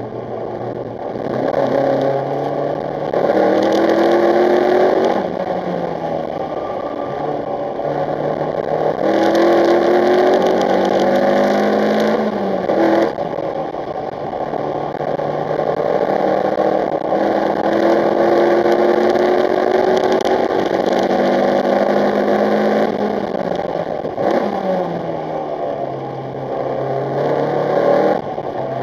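Lotus Elise S2's engine being driven hard on a lap of a track: repeated climbs in pitch under full throttle, with quick drops at gear changes, and sharp falls in pitch when braking and downshifting for corners, around 5 s, 12 s and 24 s in.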